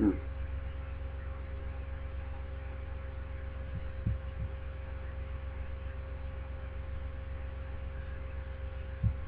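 Steady low electrical hum with a few faint, short low thumps about four seconds in and again near the end.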